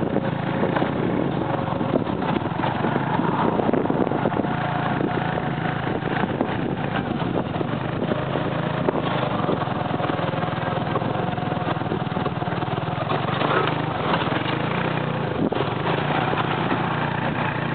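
Motorcycle engine of a tuk-tuk pulling its passenger carriage, running steadily while driving, heard from the carriage with road and wind noise and scattered knocks over the bumpy dirt road.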